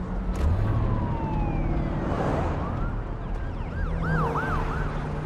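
Emergency vehicle sirens over a car engine running underneath. One siren slides slowly down in pitch about half a second in. Near the end a fast yelp comes back, about four quick rises and falls a second.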